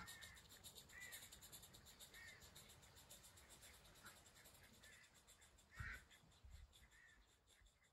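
Faint, rapid, even chuffing of a small oscillating-cylinder live steam garden-railway locomotive (IP Engineering 'Jane') drawing away, growing fainter. Short bird calls come about once a second, with a louder one about six seconds in.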